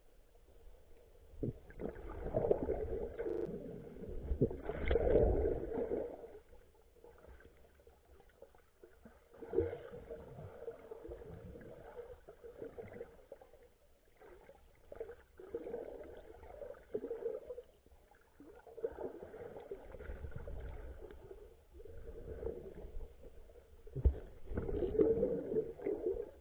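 Muffled underwater water sounds, sloshing and gurgling in irregular swells a few seconds apart, as picked up by a camera under the sea. There is a sharp knock near the end.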